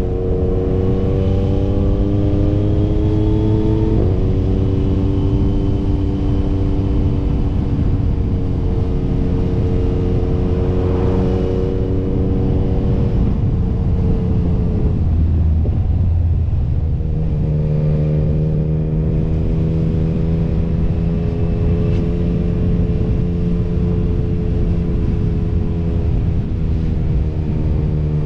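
Motorcycle engine running under way. It rises in pitch, drops at a gear change about four seconds in and holds steady, then eases off around fourteen seconds in before settling at a lower, even note.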